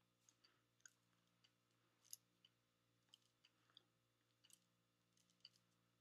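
Near silence: room tone with a faint steady low hum and scattered soft clicks at irregular moments, the sharpest about two seconds in.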